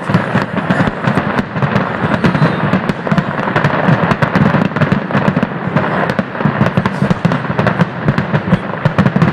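Aerial fireworks display: a dense, unbroken run of shell bursts and crackling pops, many bangs a second.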